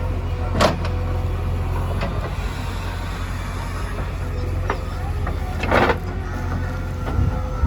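Backhoe loader engine running steadily at a low pitch, with five short clanks along the way, the one near the end of the second half lasting longest.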